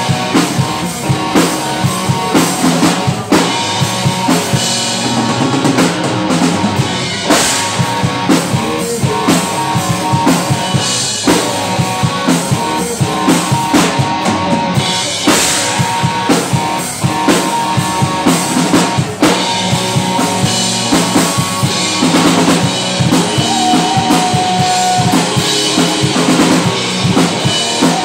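Live rock band playing: a drum kit keeping a steady beat under electric bass and electric guitar.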